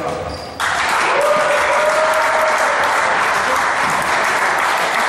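Spectators applauding in a gym, breaking out suddenly about half a second in and going on steadily.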